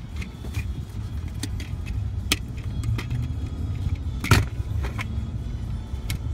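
Car driving on a wet, slushy road, heard from inside the cabin: a steady low rumble of tyres and engine, with several sharp clicks and knocks scattered through it, the loudest about four seconds in.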